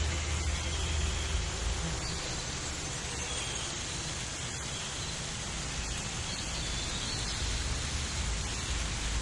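Outdoor nature ambience: a steady hiss with a low rumble underneath, and short faint high chirps scattered throughout.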